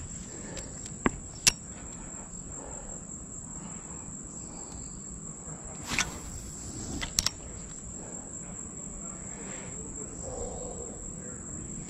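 Insects calling in one steady, high-pitched drone, with a few sharp clicks: two about a second in, and a short louder burst and a double click around six to seven seconds.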